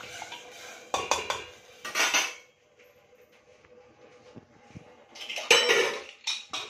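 Metal pots and utensils clattering around an aluminium pressure cooker on a gas stove: sharp knocks about one and two seconds in, then a louder run of clanks near the end as the cooker is handled and its lid set on.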